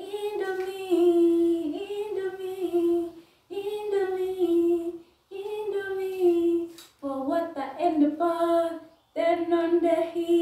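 A woman singing unaccompanied in short held phrases with brief pauses between them.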